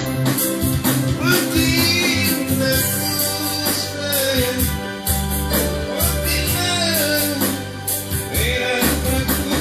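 A song with a singing voice over guitar and bass and a steady beat, starting abruptly at full level.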